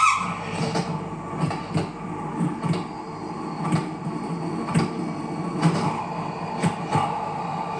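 A sound-effects artist's imitation of a train rolling along: a steady hum with sharp clicks every second or so, often in pairs, like wheels passing over rail joints.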